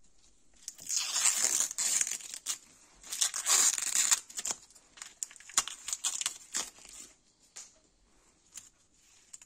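A translucent protective wrap crinkling and tearing as it is peeled off a spoon knife's handle by gloved hands. It comes as a run of crackling rustles, loudest in the first four seconds, thinning out after about seven seconds.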